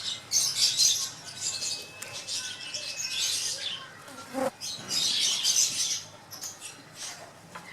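A hand-held budgerigar fluttering its wings in short bursts as it struggles, with a few faint chirps, and one sharp click about four and a half seconds in.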